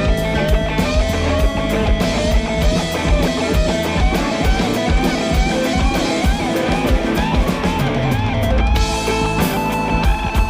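Live rock band jamming instrumentally: electric guitar lead over bass and a drum kit with cymbal hits, the texture shifting about nine seconds in.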